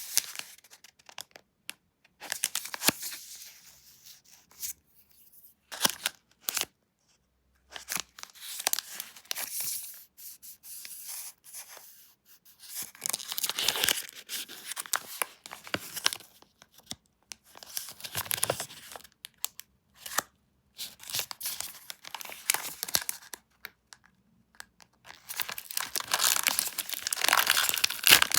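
Chocolate packaging being torn open and handled: irregular bursts of tearing and rustling with sharp clicks and short silences between. Near the end the crinkling grows louder and more continuous.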